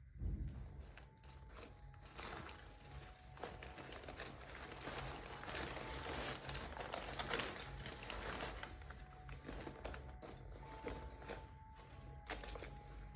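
Crinkling and rustling of something being handled, with many small clicks, loudest in the middle.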